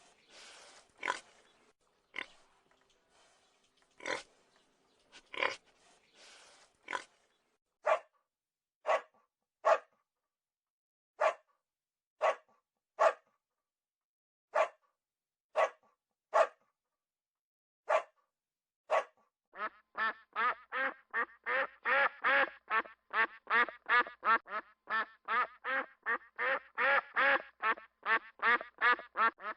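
A run of animal sounds. It opens with a pig grunting in irregular bursts. Then a dog barks about once a second. From about twenty seconds in, ducks quack in a rapid, steady string.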